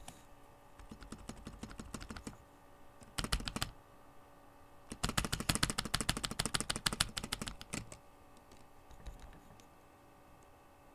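An old, cheap computer keyboard being typed on, keys clattering in runs: light taps at first, a short fast flurry about three seconds in, then the loudest, rapid run of typing from about five to eight seconds, ending in a few stray taps.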